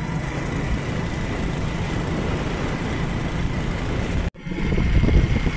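Motorcycle riding along a road: the engine running steadily under wind noise on the microphone. A sudden cut about four seconds in brings a louder, deeper stretch of the same riding sound.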